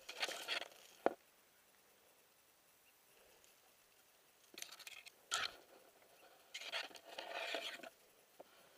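Short spells of rustling and scraping, three of them, with one sharp click about a second in.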